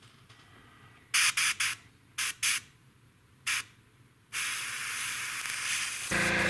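Airbrush spraying in several short hissing bursts, then a steady spray from about four seconds in. About six seconds in, the air compressor feeding it starts running with a steady low hum under the hiss.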